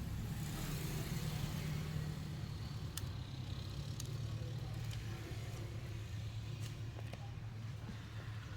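Steady low hum of road traffic or a running motor vehicle engine, with a few faint sharp clicks.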